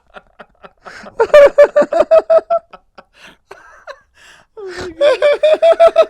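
A person laughing hard in two bouts of rapid, high-pitched ha-ha pulses, with breathy gasps in between.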